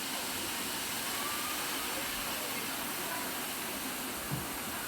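Kulen Waterfall's water falling and rushing in a steady, even roar.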